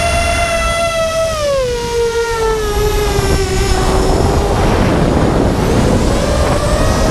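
Electric motor and propeller of a small FPV aircraft whining over constant wind rush on the onboard microphone. About a second in, the whine slides down in pitch as the motor slows and holds lower while the rushing noise grows, then it climbs slowly again near the end.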